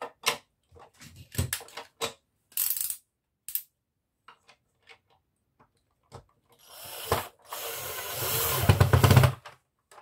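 Clicks and knocks of plastic vacuum-cleaner parts being handled and pushed into place, then a cordless drill driving a screw into the plastic housing for about two seconds, getting louder before it stops suddenly.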